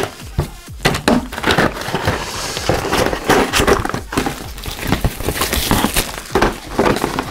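Plastic packaging being handled: crinkling and rustling of a plastic bag and a plastic tray of miniatures, with many scattered clicks and knocks.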